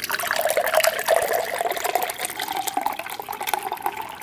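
A carbonated drink poured from a can into a drinking glass close to the microphone, splashing and fizzing, the pitch of the fill rising slowly as the glass fills. The drink has gone partly flat.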